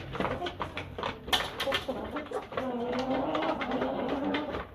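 Light Columbian Brahma chickens making low, drawn-out calls, with frequent sharp taps and clicks among them.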